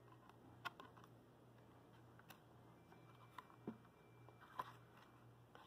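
Near silence with a low steady hum, broken by a handful of faint taps and clicks of hands on a cardboard board-book page.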